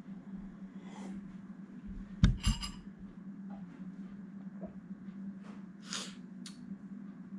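A bowl set down on a table with two knocks just after two seconds, the spoon in it clinking and ringing briefly. A steady low hum runs underneath, with a couple of soft breaths.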